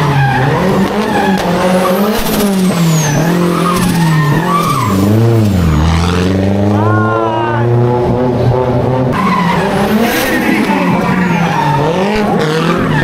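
A car engine revving hard, its pitch rising and falling again and again with a deep dip about halfway through, while the tyres squeal as the car is drifted.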